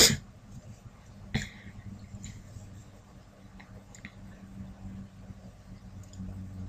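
Faint room tone: a low steady hum that grows slightly louder near the end, with one short sharp noise about a second and a half in and a few faint ticks.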